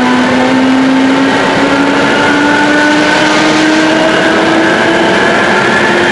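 ČD class 460 electric multiple unit running at speed, heard from inside the carriage: the traction motors' whine climbs steadily in pitch as the unit accelerates, over loud, steady rolling noise from the wheels and track.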